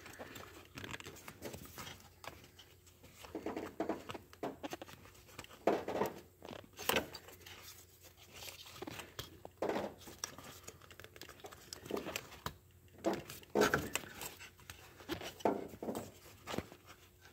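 Hands twisting and tugging at a stuck coil-on-plug ignition coil in its spark plug well on a 2011 Ford Taurus SHO's 3.5L EcoBoost engine: irregular clicks, creaks and rubbing of the plastic coil and the wiring loom beside it, as the coil holds fast in its well.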